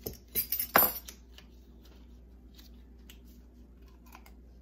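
Ring of metal measuring spoons and a bottle being set down on the counter: a few sharp clinks and knocks in the first second, the loudest just under a second in, followed by a few faint ticks.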